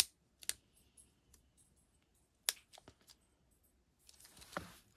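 Deli 0.5 mm erasable pen worked by its push-down mechanism, giving a few sharp clicks, then scribbled across paper from about four seconds in. The pen is slow to start and is being scribbled to get the ink flowing.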